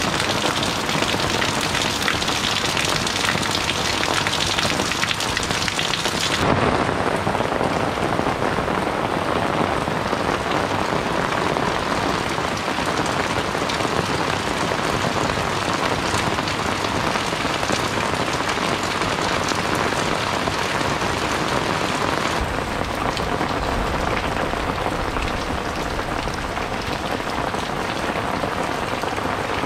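Steady rain falling on tiled roofs and leaves and running off the eaves, a dense even hiss. About six seconds in the sound loses some of its highest hiss, and near twenty-two seconds it gains a deeper rumble.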